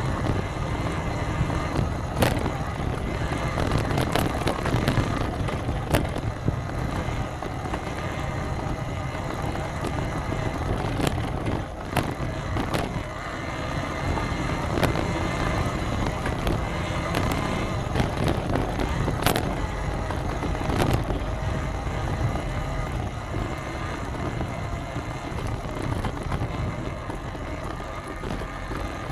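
Steady low rumble of a vehicle on the move, with scattered sharp clicks and knocks.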